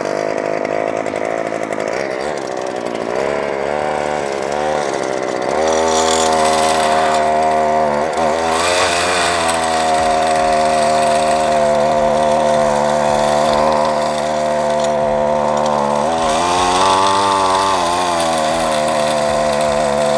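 Lawn edger fitted with a double blade, its motor running as it cuts a shallow trench through the lawn for cables. The motor's pitch wavers up and down a few times, and it gets louder about five seconds in.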